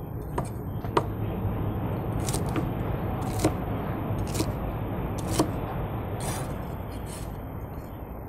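Chinese cleaver chopping scallions on a wooden chopping board: single sharp knocks about once a second, over a steady low rushing noise.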